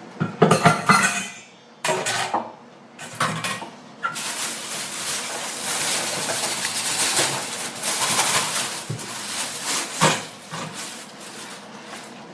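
Pots, pans and utensils clattering in a kitchen in several loud bursts. About four seconds in, a steady hiss begins with clinks on top, fading after about ten seconds.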